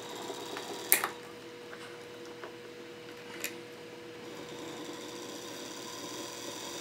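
Antique VoltAmp toy electric motor, cast iron with brass bearings and brushes, running with a steady hum. Two sharp clicks about a second in and a fainter one past the middle.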